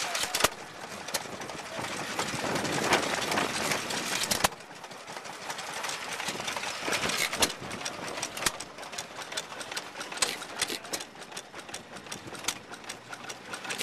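Old stationary engines running: a steady mechanical clatter with many sharp ticks and knocks. About four and a half seconds in the sound drops abruptly, leaving a lighter, regular ticking.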